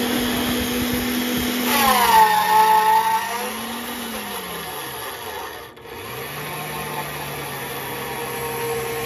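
AOCKE AX16RE magnetic drill press's electric motor drilling steel plate: it runs steadily, then drops in pitch with a rising whine as the bit bites under load about two seconds in. Around five seconds in the motor winds down and briefly stops, then starts again and runs steadily at a lower pitch.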